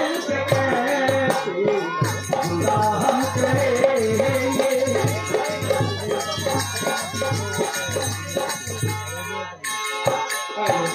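Live folk music: a harmonium melody over a steady drumbeat of about two beats a second, with shaken jingling percussion.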